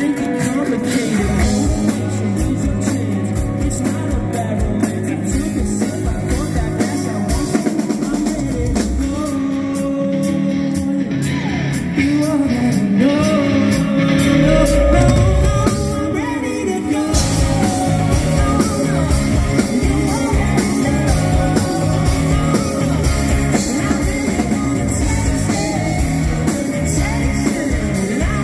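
Rock band playing live: a man singing lead over electric guitars, bass guitar and a drum kit.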